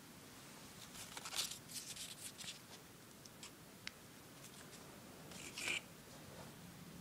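Faint crinkling and rustling of paper-wrapped firecrackers and their cardboard boxes being handled, in two short bursts of crackles about a second in and again near six seconds, with a single click in between.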